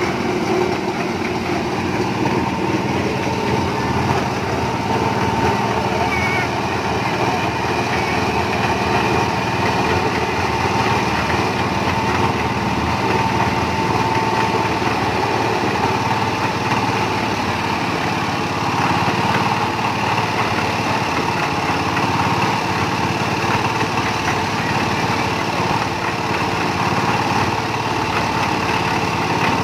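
Engine-driven concrete mixer running steadily at a constant speed, its small engine turning the drum under a test run.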